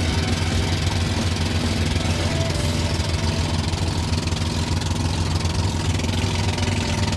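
Outrigger motorboat's engine running steadily under way, a constant low drone.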